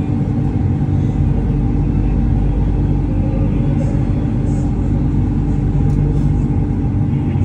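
Driverless elevated light-rail train running along its track, heard from inside the car: a steady rumble with a low motor hum, and faint light ticks from the running gear now and then.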